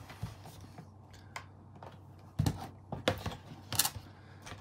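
Cardboard and paper packaging of a camera box being handled and opened: a handful of short scrapes, rustles and taps as the paper sleeve and inner box flap are pulled, loudest a little past halfway and again near the end.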